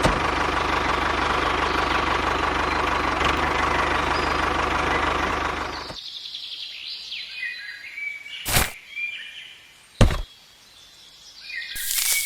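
A small motor, likely the mini tractor's, runs steadily and cuts off abruptly about six seconds in. Birds then chirp, with two sharp knocks a second and a half apart.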